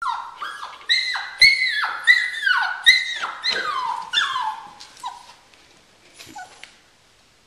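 Rough collie puppies crying with high-pitched whines, each call falling in pitch, about two a second, fading out after about five seconds as the puppies fall quiet.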